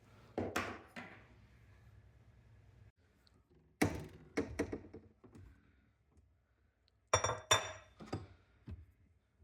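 Hard objects being handled and set down on a hard surface: a few dull knocks, then about seven seconds in two clinks with a short ring, like glass or china.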